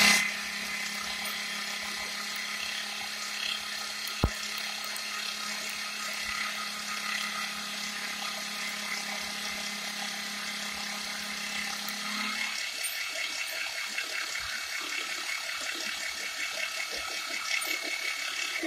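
Milling machine spindle running with an end mill side-cutting a 10 mm aluminium bar, squaring the stock down to size. A steady low hum under the cutting drops out about two-thirds of the way through, and there is one sharp click about four seconds in.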